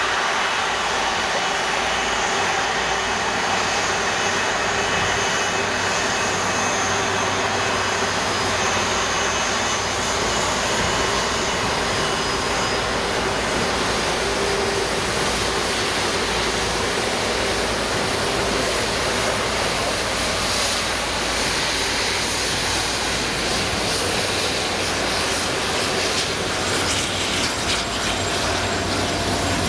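Jet airliner engines running, a loud, steady rush of noise with a faint high whine in the first half.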